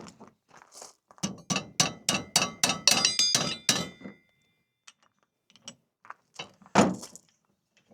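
Hammer driving a steel roll pin into the sawmill's lift crank: a quick run of about a dozen ringing metal-on-metal strikes, about four a second, then a few light taps and one hard blow near the end.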